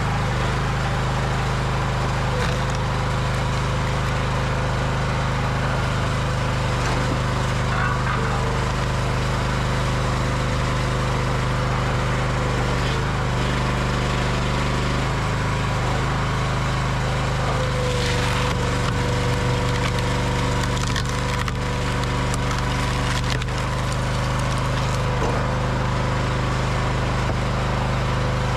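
A Honda engine on a log splitter runs steadily under the splitting. A few times, wood cracks and splinters as rounds are forced through the multi-way wedge.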